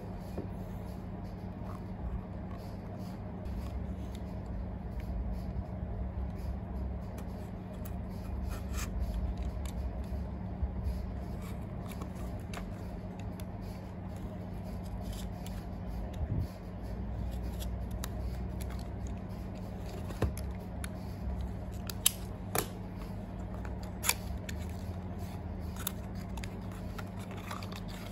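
Hands handling a small cardboard box and slicing through its tape seal with a small box cutter: light scraping and rustling, with a few sharp clicks in the second half, over a steady low hum.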